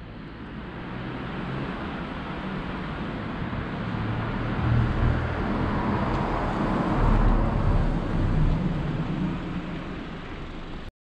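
A car driving by on the street: engine rumble and tyre noise grow louder, are loudest about two-thirds of the way through, then ease off.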